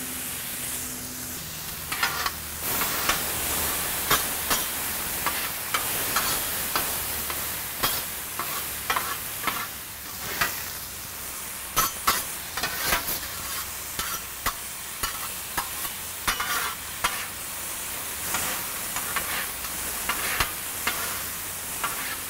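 Finely chopped beef sirloin, onions and jalapeños sizzling on a Blackstone flat-top griddle. From about two seconds in, metal spatulas scrape and click against the steel as the meat is tossed and chopped together.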